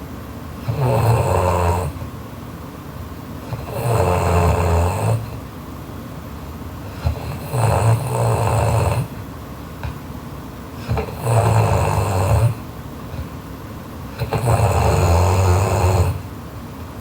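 Loud snoring of a sleeping girl: five long, low snores, one about every three and a half seconds, with quieter breathing noise between them.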